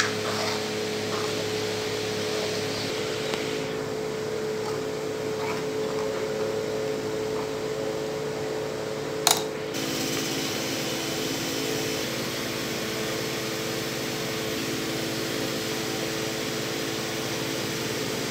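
Steady mechanical hum with a fan-like whir from a running kitchen appliance, with one sharp click about nine seconds in.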